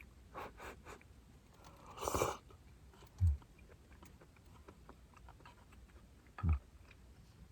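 Someone eating hot instant miso soup: a few small mouth sounds, one louder slurp about two seconds in, and two dull low thumps a few seconds apart.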